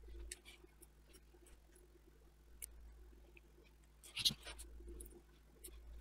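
Quiet hand soldering on a circuit board: faint ticks and taps of the soldering iron tip and solder wire against the switch pins, with a brief louder crackle about four seconds in, over a low steady hum.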